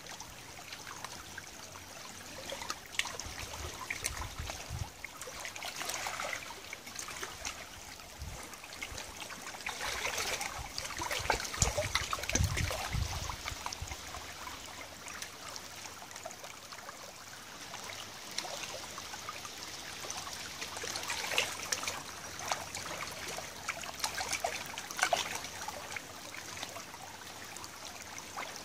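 Shallow tidal river water trickling and lapping at the muddy bank, with many small scattered clicks and crackles. A low rumble comes twice, the louder about twelve seconds in.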